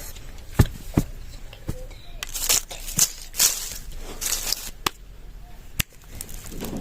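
Food-preparation handling sounds: about six sharp clicks and knocks, spaced irregularly, with three short rustling or tearing bursts in the middle.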